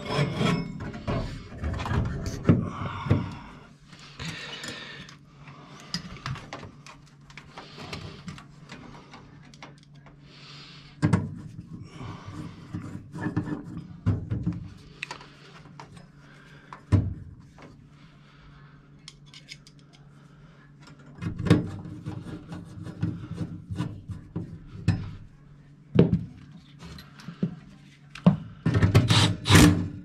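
Hands refitting sheet-metal furnace parts and wiring: irregular scraping, rubbing, clicks and metal clunks as the burner-access plate is handled and screwdriver work is done, with louder clatters several times, the loudest near the end. A faint low steady hum runs underneath.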